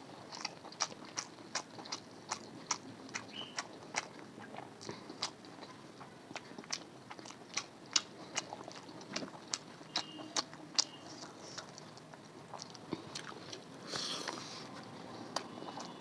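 Close-up chewing and eating: wet mouth clicks and smacks, a few a second, as food is chewed. Near the end there is a brief rustling noise.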